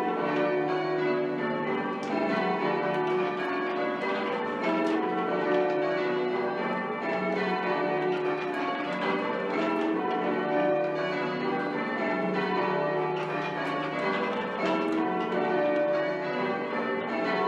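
A ring of eight church bells with a 24 cwt tenor being rung in changes, the bells striking one after another in a steady continuous sequence. The bells, the 7th in particular, are slightly oddstruck and wobble in their striking, which the ringer puts down to the tall, swaying tower.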